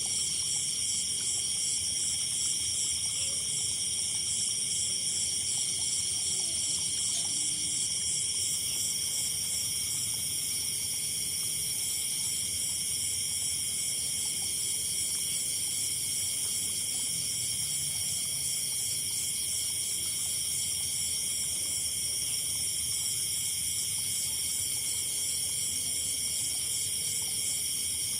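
Chorus of night insects, several high-pitched trills overlapping without a break, some with a fast pulsing beat.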